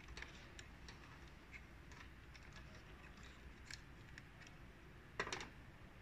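Faint, scattered small clicks and taps of hands working on a car's wiring harness and connectors, with a louder quick run of two or three clicks about five seconds in.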